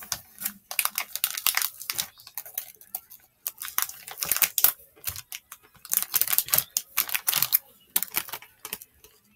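Close-up chewing and crunching of milk chocolate with almonds, in several bursts of crackly crunches. Near the end a foil candy wrapper crinkles.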